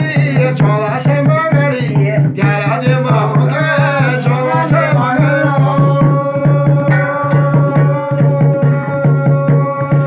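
Garhwali jagar: a man singing over a rope-laced drum and a brass thali plate beaten with a stick, in a fast steady rhythm. About five seconds in, the singer holds one long note.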